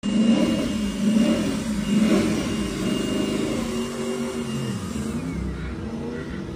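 Ducati Panigale V4 R superbike's V4 engine running on its stand while it warms up, revved in three quick rises about a second apart, then running lower and steadier as the revs fall back.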